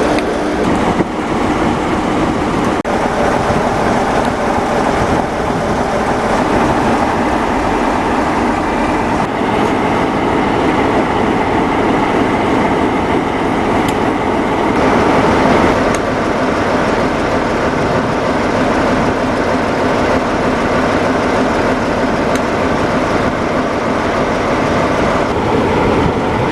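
Class 47 diesel locomotive's Sulzer engine idling steadily while standing, with a few sharp clicks over it from the Spirax valves, the automatic drain valves on the air reservoirs that release moisture from the air brake system.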